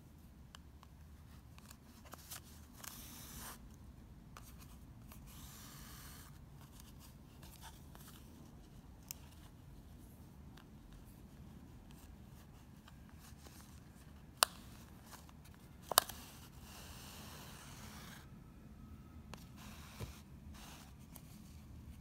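Yarn rubbing and swishing as it is drawn over and under the yarn warp strands of a CD weaving loom, in several short strokes, with small handling ticks. Two sharp clicks in the second half stand out above the rest.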